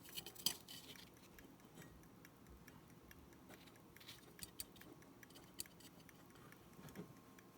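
Verge fusee pocket watch ticking faintly and quickly, with a few louder clicks in between.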